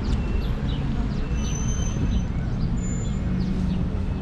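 City street ambience: a steady low rumble of traffic with birds chirping in short, quick notes every half second or so.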